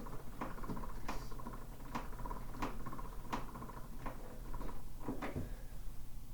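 Hand crank winding the clockwork spring motor of a 1920s Orphola portable phonograph: the winding ratchet ticks rapidly, with a sharper click recurring about every two-thirds of a second.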